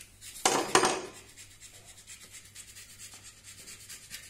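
Two quick rubbing strokes about half a second in, a rag wiped over the bare metal engine crankcase, then only faint workshop background.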